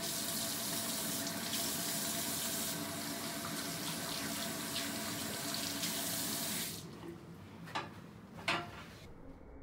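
Bathroom sink faucet running steadily over hands being washed, then shut off about two-thirds of the way through. Two short, sharp sounds follow, paper towel being pulled and torn from a roll.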